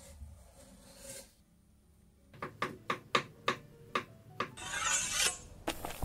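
Kitchen scissors snipping through the peeled cap of a dryad's saddle mushroom on a wooden board, a quick run of about eight crisp cuts. Before them comes a brief knife scrape through the mushroom, and a short hiss follows near the end.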